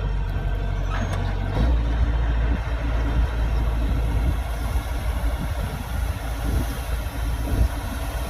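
Kubota DC-105X combine harvester's diesel engine running steadily under way, its low hum growing stronger about one and a half seconds in.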